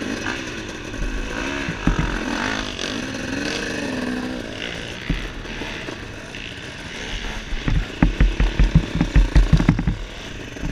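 Several dirt bike engines idling and revving, their pitch rising and falling. Later a bike close by pulls away with a loud, rapid chugging of low pulses that stops about ten seconds in.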